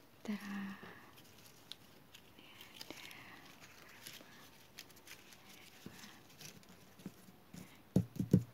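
Paper strips rustling and clicking softly as they are handled and laid out on a cloth-covered board, with a short hum-like voice sound about half a second in. Near the end a quick cluster of soft thumps as hands pat the strips down flat is the loudest sound.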